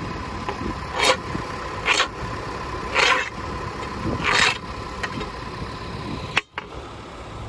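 Farm tractor engine running with a steady low rumble and a thin steady whine, with four short hissing noises about a second apart. The sound drops out for a moment near the end.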